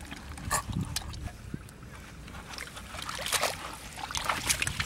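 Live catfish thrashing in a bucket of muddy water, with short, irregular splashes and sloshes; the strongest come about half a second in and in a cluster after three seconds.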